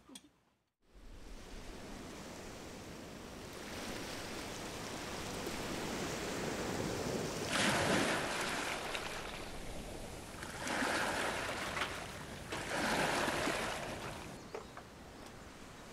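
Small waves washing in over rounded stones and pebbles on a shore: a steady hiss of surf that starts about a second in and slowly builds. Three louder surges of foaming water come in the second half, and the surf eases off near the end.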